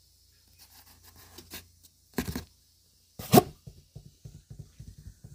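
Close handling noise on a phone's microphone as it is brought right up to a resting cat. Scratchy rustling comes first, then two loud scrapes about two and three seconds in, then a run of quick soft rubbing sounds.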